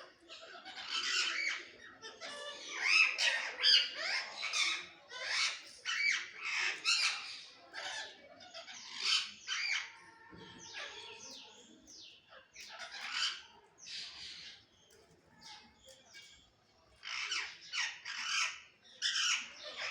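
Parrots squabbling: a rapid run of harsh squawks and screeching calls, one after another, with a short lull about three quarters through.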